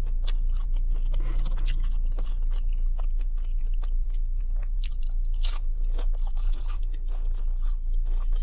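Close-up chewing and crunching of a McDonald's chicken nugget, with scattered sharp mouth clicks.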